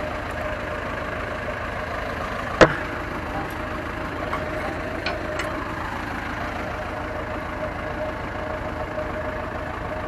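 Farm tractor engine idling steadily. One sharp knock comes about two and a half seconds in, with a couple of light ticks a little later.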